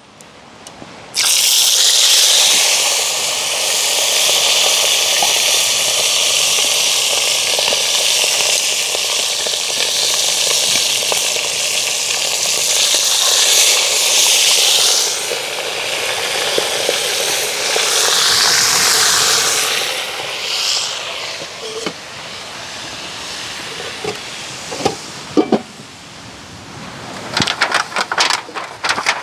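A fresh batch of food dropped into a pot of hot frying oil, starting with a sudden loud sizzle about a second in. The sizzle holds strong for nearly twenty seconds, then dies down to a softer crackle, with a few knocks near the end.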